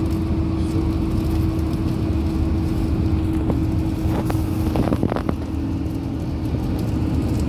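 Inside a moving long-distance bus: steady engine and road rumble with a constant hum, and a few short clicks about four to five seconds in.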